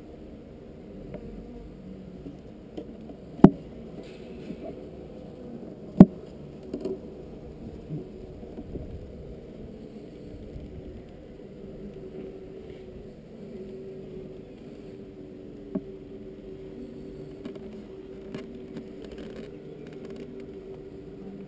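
Honeybee colony in an open mating nuc humming steadily. Two sharp knocks about 3.5 and 6 seconds in, and a lighter one later, as the wooden hive box and lid are handled.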